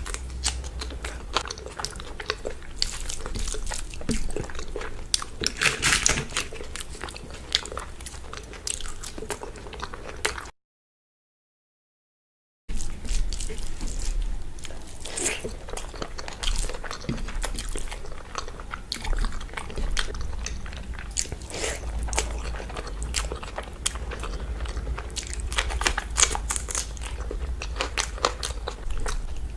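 Close-miked eating: wet chewing with crisp crunches and mouth clicks as a raw green chilli is bitten and rice with curry is eaten by hand. The sound cuts out completely for about two seconds about a third of the way in.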